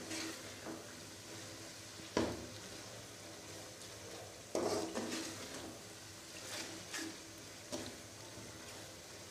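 A metal spoon stirring and scraping a thick onion-tomato masala around a metal pot, with a few light knocks against the pot, the clearest about 2 and 4.5 seconds in. Under it the masala sizzles faintly as it fries down in oil after cream has been added.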